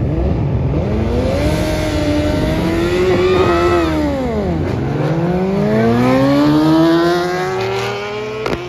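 A drag-racing vehicle's engine accelerating hard. Its pitch climbs for about four seconds, drops sharply at a gear change, then climbs again.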